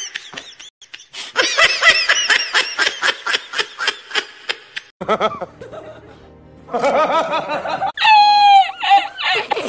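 Laughter: a fast string of ha-ha bursts, then after a short lull more laughing with a falling squeal near the end, over music.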